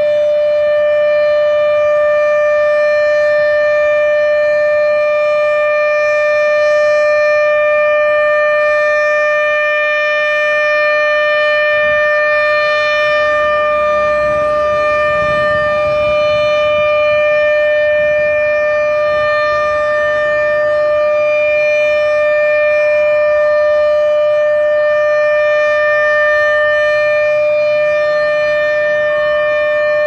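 ASC OM-120 electromechanical outdoor warning siren sounding its Alert signal: one steady, unwavering tone held at full pitch.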